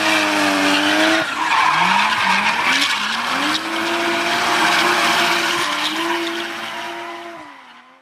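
Race car engine revving hard with tyre screech. About a second in the engine drops in pitch, then climbs in three quick rising sweeps as it shifts up through the gears. It then holds a steady high pitch, which falls away and fades out near the end.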